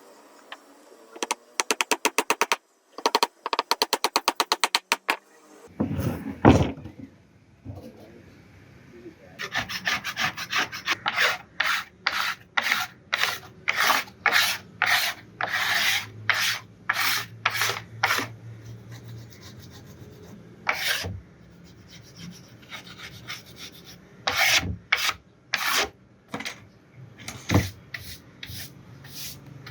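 A hand tool being rubbed back and forth on wood, scratchy strokes about two a second. Two short runs of much faster strokes come in the first few seconds.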